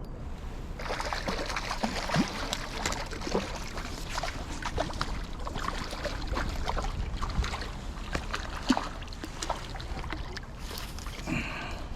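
Water splashing and sloshing in a river, with many small, sharp splashes one after another, starting about a second in.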